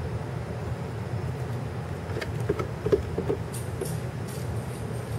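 Steady low outdoor rumble, with a few close footsteps about two to three and a half seconds in as a person walks past and out into the yard.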